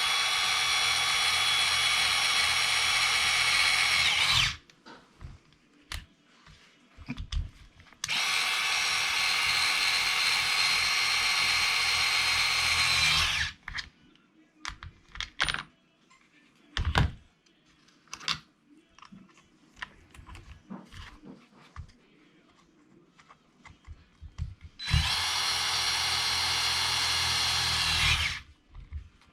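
Electric drill running three times in steady runs of about four to five seconds each, driving screws, with small clicks and knocks of parts being handled in the gaps.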